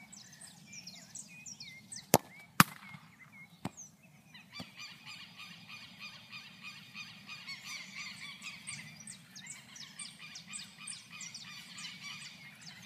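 A football kicked barefoot in a penalty: a sharp thud, then a louder impact about half a second later as the ball reaches the goal, and a smaller knock a second after that. Birds call throughout, thickening into a dense chattering flock from about four seconds in.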